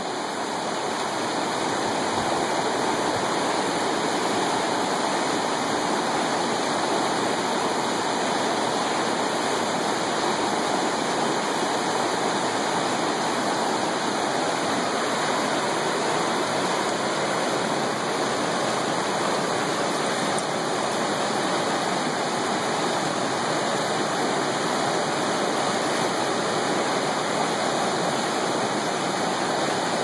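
White-water river rapids rushing steadily, a dense unbroken water noise that swells up over the first couple of seconds and then holds even.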